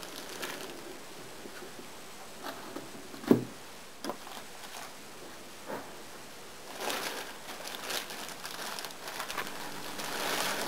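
Clear plastic bag crinkling and rustling as it is pulled off a telescope tube, after a few short knocks, the loudest about a third of the way in, as the tube is handled and set down.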